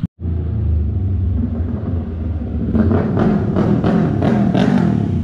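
Motorcycle engine idling, with a second motorcycle riding up and growing louder from about three seconds in.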